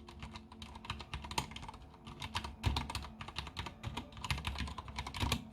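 Typing on an AKKO 3084 mechanical keyboard with Cherry MX silent switches: a quick, irregular run of soft, quiet key clicks, not completely silent.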